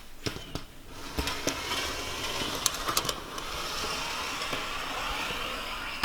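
Metal siding panel being cut lengthwise: a steady rasping, motor-like noise with a few sharp clicks, starting about a second in.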